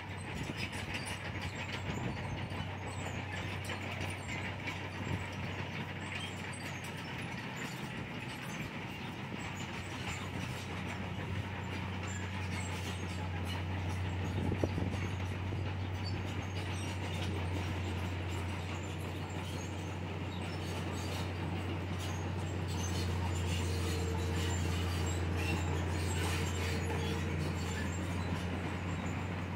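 Komatsu D31PX crawler bulldozer at work: its diesel engine runs with a steady drone under the clanking rattle of its steel tracks. There is a single sharp knock about halfway through, and the engine grows louder, with a steady whine over it, for a few seconds near the end.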